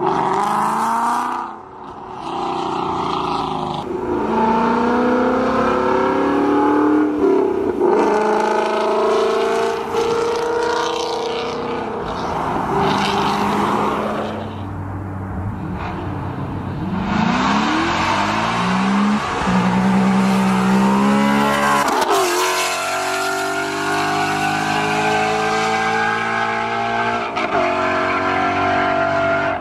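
Straight-piped Ford Mustang GT's V8 accelerating hard past the roadside, its exhaust note climbing through each gear and dropping at each shift. Several separate pulls follow one another, with abrupt cuts between them.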